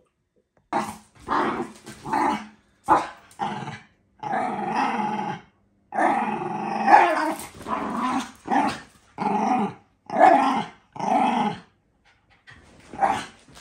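Two dogs growling and barking at each other in a dozen or so bouts, short snaps mixed with growls held for a second or more.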